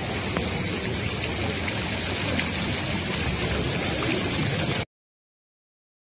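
Steady rushing outdoor background noise on a camera microphone, with a few faint clicks, cutting off abruptly to silence near the end.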